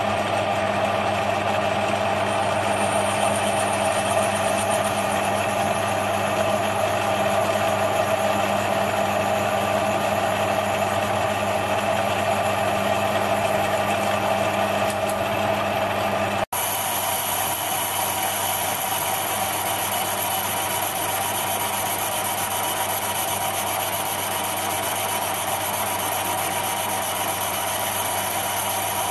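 Metal lathe running steadily, its motor and gearing humming, while a boring bar takes a light cut in the bore of a brass flywheel. The sound cuts out for an instant a little past halfway, then carries on slightly quieter.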